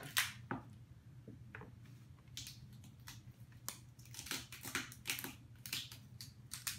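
Cooked Dungeness crab shells cracked and snapped apart by hand: irregular sharp cracks and crunches, sparse at first and more frequent in the second half.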